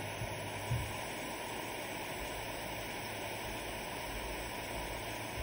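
Steady hiss of a butane soldering iron burning while its tip is held on solenoid pack terminals to melt solder, with two faint knocks in the first second.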